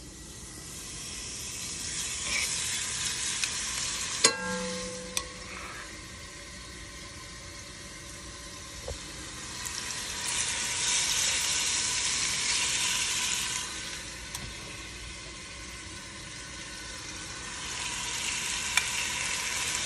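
Food sizzling in a hot pan, the hiss swelling louder and fading away three times, with a sharp clack and a brief tone about four seconds in.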